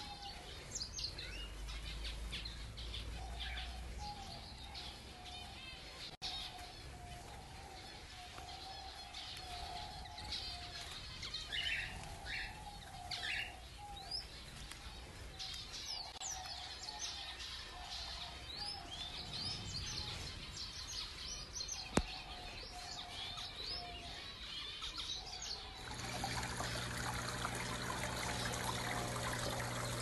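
Many small birds in an aviary chirping and twittering in short rising calls, with a lower call repeating underneath. A single sharp click comes about two-thirds of the way through. Near the end, running water, pouring or trickling with a steady low hum, comes in over the birds.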